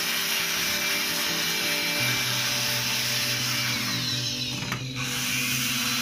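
Handheld electric air blower running steadily, blowing air over a motherboard to dry off cleaning thinner, with background music underneath.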